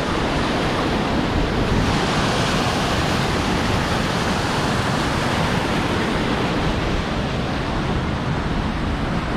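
Steady rush of a mountain stream pouring over rocks into a deep rock plunge pool.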